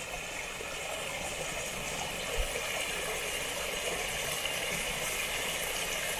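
Running water, a steady even rush, with one brief low thump about two seconds in.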